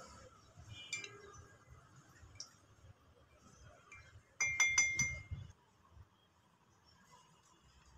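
A spoon clinking against a glass coffee mug: a light tap about a second in, then a quick run of four or five ringing clinks near the middle.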